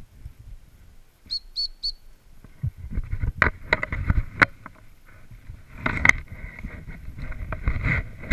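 A gundog training whistle blown in three short high pips: the search signal telling the Weimaraner to put its nose down and hunt for the dummy. After it come irregular knocks and crunches of the handler moving on the gravel track, the loudest being sharp clicks about midway.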